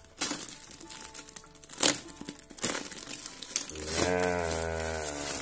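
Plastic parcel wrapping crinkling and crackling in sharp bursts as hands pull it open. Near the end comes a long, low pitched sound that falls slightly.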